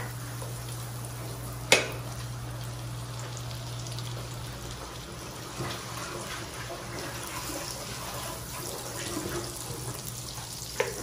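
Butter sizzling steadily as it melts and foams in a nonstick frying pan, pushed around with a wooden spatula. A single sharp knock comes about two seconds in, with a smaller one near the end.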